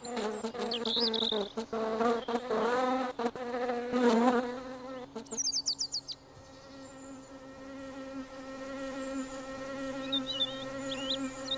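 Cartoon bees buzzing: a wavering buzz for the first few seconds, then a steady drone that slowly grows louder from about six seconds in. A few short high chirps come through about five seconds in and again near the end.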